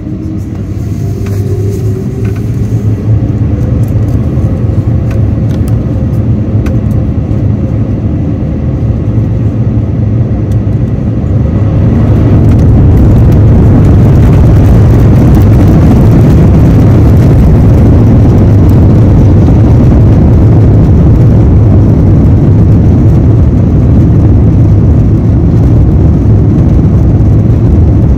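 Airbus A350-900's Rolls-Royce Trent XWB jet engines going up to takeoff thrust, heard from inside the passenger cabin. The rumble grows louder in two steps, a few seconds in and again about twelve seconds in, then holds steady and loud.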